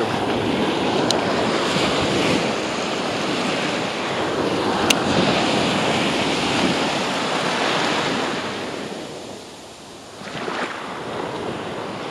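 Surf breaking and washing up the beach, with wind buffeting the microphone; the rush of water swells and eases, falling away briefly near the end before the next wave comes in. Two brief sharp clicks, about one and five seconds in.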